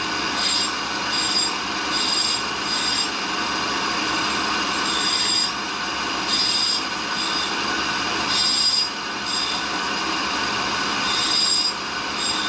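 Tool and cutter grinder's wheel running and grinding against a dressing tool held in the workhead chuck as it is fed in by handwheel, dressing the wheel. A steady scraping grind with repeated higher-pitched surges.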